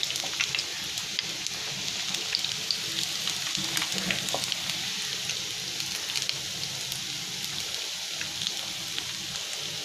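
Corn-and-potato kebabs deep-frying in oil over medium heat: a steady sizzling hiss with scattered crackles and pops.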